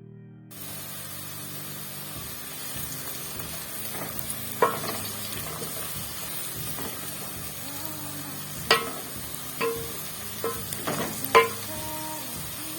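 Onions and other vegetables sizzling in hot oil in a metal pan, a steady hiss, while a spoon stirs them. The spoon knocks against the pan several times with ringing clanks, mostly in the second half.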